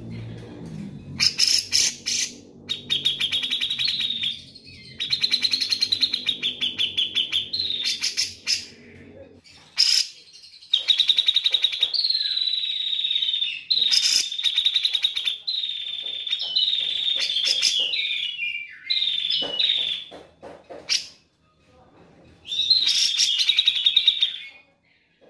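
Grey-cheeked bulbul (cucak jenggot) singing: repeated phrases of fast, rattling, chattering notes at a high pitch, each lasting one to two seconds with short pauses between them, some phrases ending in a falling slur.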